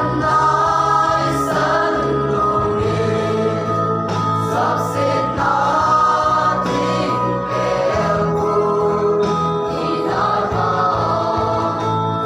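Youth choir of mixed voices singing a hymn together over a steady held low accompaniment.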